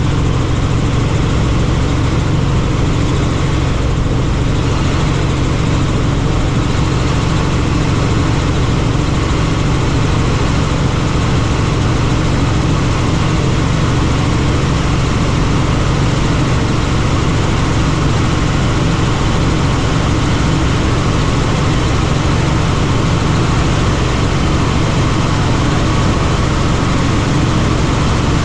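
Helicopter's engine and rotor running steadily, a constant loud noise with no change in pitch or level.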